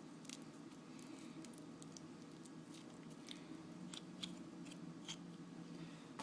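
Ripe avocado being squeezed out of its skin by hand: faint soft wet squishes with scattered small clicks, about one every half second to a second, over a low steady hum.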